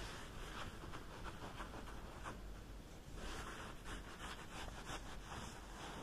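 Close-miked scratching and rubbing sounds of haircut ASMR, made in many short strokes, with louder brushing bursts in the second half.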